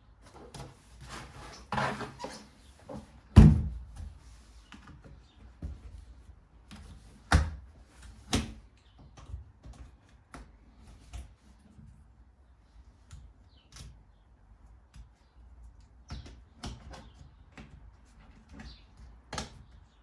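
Scattered knocks and thuds from a whiteboard being handled and positioned, the loudest about three and a half seconds in and two more around seven and eight seconds in.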